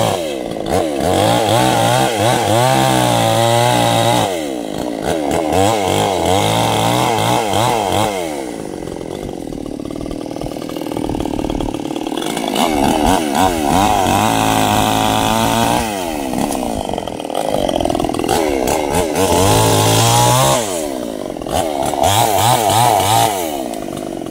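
Stihl two-stroke chainsaw cutting into a large sengon trunk. Its engine pitch rises and sags again and again as the throttle is worked and the chain loads up in the wood, easing off to a lower, quieter run for a few seconds near the middle.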